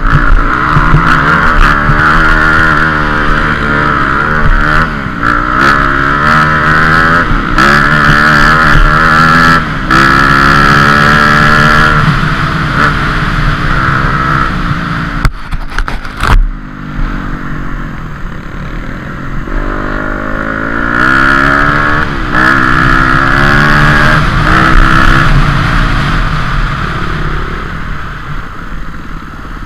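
Dirt bike engine under load, its pitch climbing and falling again and again as the throttle opens and closes over rough terrain. About halfway through, a few sharp knocks come as the engine drops off briefly, then it pulls up again, running a little quieter near the end.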